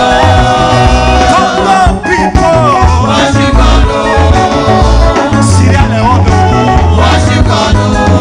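Loud upbeat dance music with a singing voice over a heavy, steady bass line.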